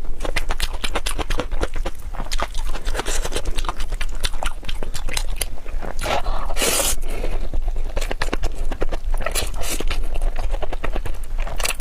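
Close-up eating sounds of a person eating cooked shellfish: a dense run of small clicks and smacks from shells and chewing, with a few longer hissy sucking sounds about six and nine seconds in and near the end.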